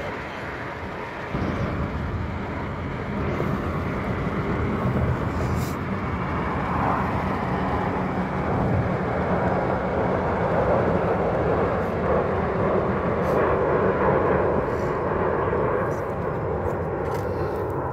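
Airbus A350's Rolls-Royce Trent XWB jet engines at takeoff power: a broad, steady roar that grows louder through the middle as the aircraft climbs out. A low rumble comes in abruptly about a second in.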